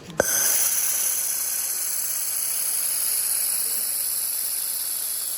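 Handheld fiber laser welding gun triggered with a sharp click just after the start, then a steady loud hiss of shielding gas and welding, which eases off slightly toward the end.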